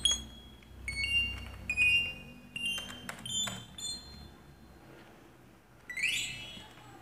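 Chime-like high electronic notes, a few short ones spaced under a second apart. A low hum fades out about two seconds in, and a quick rising run of notes comes near six seconds in, typical of background music.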